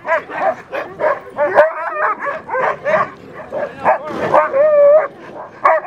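A team of harnessed sled dogs barking and yipping, several at once, in quick overlapping short calls, with one longer whine held at a steady pitch about four seconds in.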